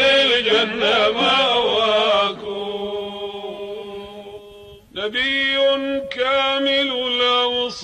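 A man's voice singing an Arabic Sufi praise song (madih), drawing out long melismatic notes with no clear words. The voice softens for a couple of seconds, breaks off briefly about five seconds in, then holds a steady high note again.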